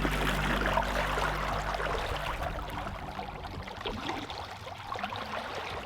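Water rushing and splashing along the hull of a sailboat under way, with a low steady hum fading out over the first two seconds.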